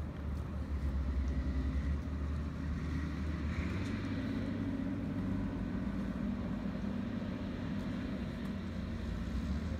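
An engine running steadily nearby, a continuous low rumble.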